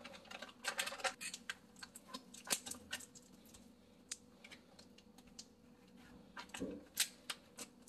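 Faint crinkling and small clicks from a plastic ziplock bag being handled and its seal pressed shut, a few scattered bursts with quiet gaps between.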